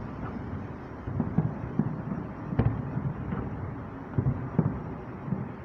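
Aerial fireworks shells bursting: a string of about ten short bangs at uneven intervals, some in quick pairs, over a steady background noise.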